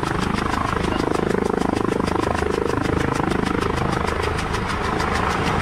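Air ambulance helicopter on the ground with its engines running and its rotor turning, giving a steady, rapid, even beat of the blades.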